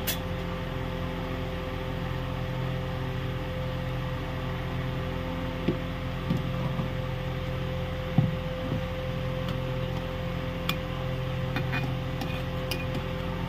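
A steady mechanical hum with a few short, light clinks of a metal spoon against the aluminium pot of heating milk.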